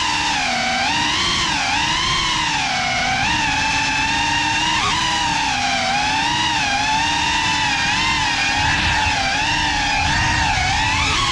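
Cinelog 35 FPV cinewhoop drone's brushless motors and propellers whining, the pitch rising and falling constantly with the throttle as it flies, over a low rushing noise from the propellers.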